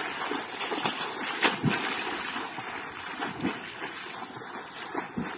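Water splashing and churning as a swimmer thrashes through shallow seawater doing the butterfly stroke, many irregular splashes that slowly fade as he moves away.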